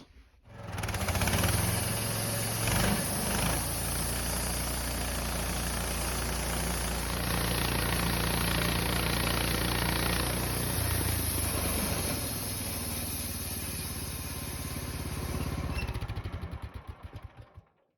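Wood-Mizer LT15 sawmill's gas engine running, switched through a makeshift jumper wire in place of its broken on/off switch. It comes on about half a second in and runs steadily. Near the end it is shut off and coasts down in slowing pulses to a stop.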